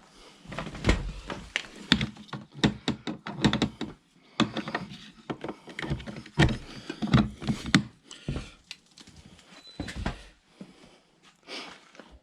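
Rapid, irregular knocking and clattering, many quick knocks in a row, with brief pauses about four seconds in and again after eight seconds.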